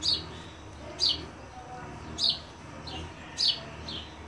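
A songbird calling: four sharp, short downward chirps about a second apart, with fainter lower chirps between them.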